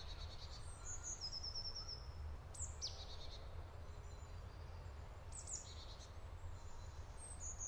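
Quiet forest ambience with a few faint bird calls: short high chirps with quick falling notes about three seconds in, again around five and a half seconds, and near the end, over a low steady rumble.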